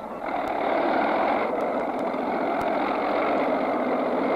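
Cartoon sound effect of a tank engine: a rough, steady engine noise that comes in suddenly just after the start and keeps running at an even level.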